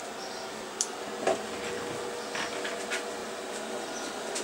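Steady hum of running electronic bench equipment, with a few faint steady tones and some light clicks about one, one and a half, and three seconds in.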